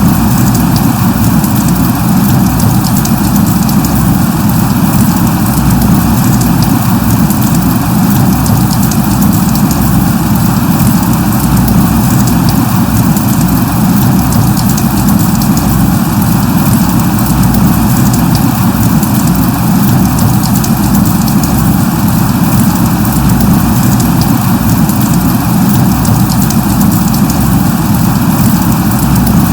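Light rain falling steadily: an even, unbroken hiss with a strong low rumble beneath it and a fine patter of small drop ticks on top.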